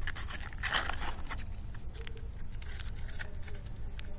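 Cardboard candy box and foil wrapper being handled: short crinkles and rustles as the box end is opened and a foil-wrapped chocolate egg is drawn out. The loudest rustle comes about a second in.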